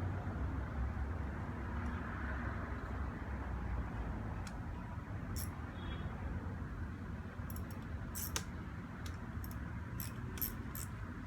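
Small sharp clicks and taps of hand tools and lever parts being handled during a motorcycle clutch-lever installation, a handful of them in the second half, over a steady low outdoor rumble.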